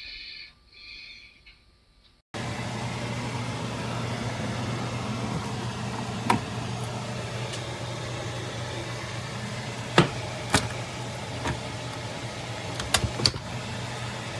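Keurig K-Mini coffee maker brewing. After some faint high tones, its pump comes on about two seconds in with a steady hum and hiss. A few sharp clicks and ticks sound over it.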